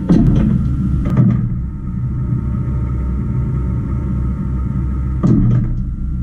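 Monforts RNC 5 CNC lathe running with a steady low hum, broken by clunks and clicks as its tool turret indexes: twice in the first second and a half and again about five seconds in.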